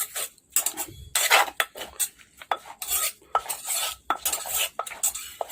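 Som tam being pounded and tossed in a mortar with a pestle and spoon: irregular knocks and scrapes of utensils against the mortar as the seafood salad is mixed.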